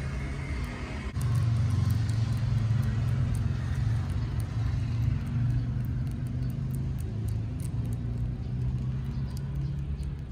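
A steady low motor rumble that comes up suddenly about a second in and holds, with faint light ticks over it.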